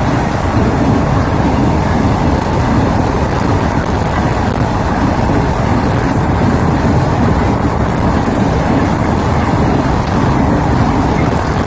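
Electric goods train running through at high speed, its wagons' wheels on the rails making a loud, steady rumble.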